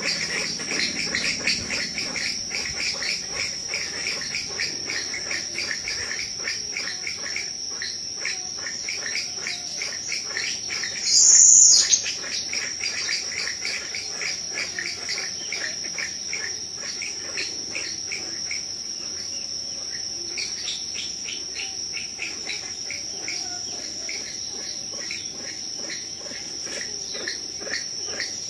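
Forest insects: a steady high-pitched whine with rapid pulsing chirps beneath it. About eleven seconds in, a louder high buzz lasts for about a second.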